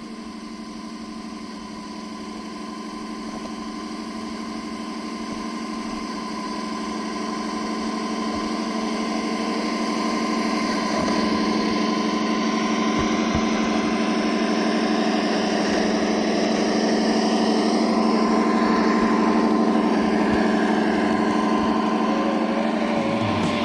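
Simulated truck engine sound from the RC Ural 4320 model's Das Mikro TBS Mini sound module, played through its small onboard speakers: a steady engine running note, with no deep bass, growing gradually louder as the truck drives closer.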